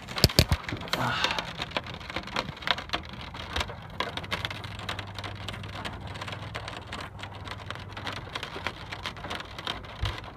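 Heavy rain hitting a car's roof and windshield, heard from inside the closed car as a dense stream of irregular sharp ticks.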